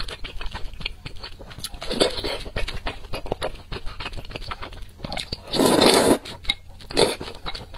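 Close-miked slurping of wide glass noodles out of a spicy soup, with wet chewing and small mouth clicks in between. The longest and loudest slurp comes a little over five seconds in, with shorter ones about two seconds in and just before the end.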